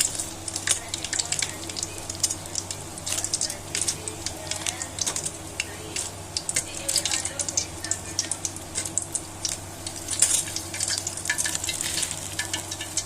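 Chicken wings sizzling and crackling as they fry a second time in oil in a wok, stirred now and then with a utensil in the pan.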